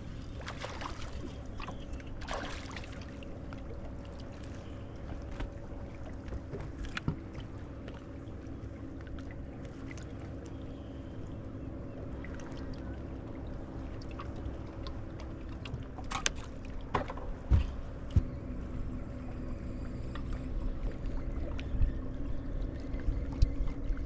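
Steady hum of a bass boat's bow-mounted electric trolling motor, with water lapping at the hull and a low wind rumble. A few sharp knocks sound on the boat, the loudest about two-thirds of the way through.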